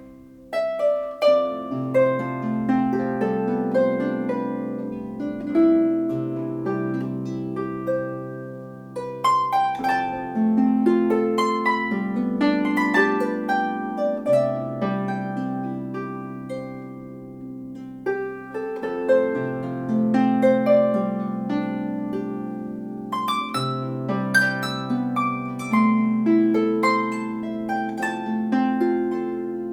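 A 34-string Celtic harp being played: plucked melody notes ringing over sustained bass notes, with fuller chords struck every few seconds.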